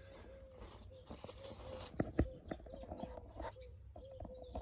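A few light clicks and taps from a small car fuse being worked with pliers, over a faint steady wavering tone.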